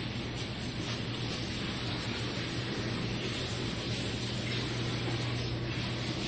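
Steady background noise: a constant low hum with an even hiss over it, without a clear break or distinct knock.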